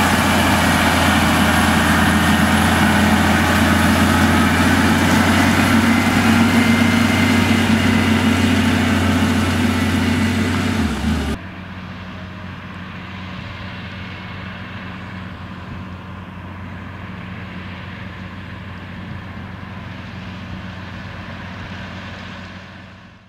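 John Deere 9630T track tractor's diesel engine running steadily under load while pulling a tillage implement, loud and close. About eleven seconds in the sound cuts abruptly to a quieter, duller tractor engine working farther off, which fades out near the end.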